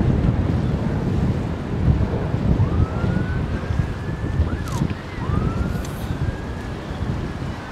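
Wind buffeting the microphone, a steady low rumble. In the middle a faint, distant wail rises and falls in pitch a few times.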